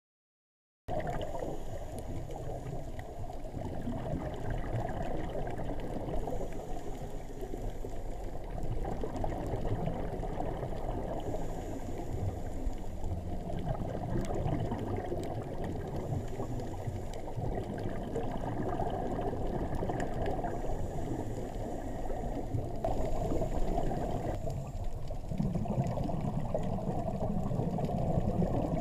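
Underwater sound picked up by a GoPro Hero3 camera: a steady, muffled rush and bubbling of water, beginning about a second in, with faint scattered clicks and a soft hiss that comes back every few seconds.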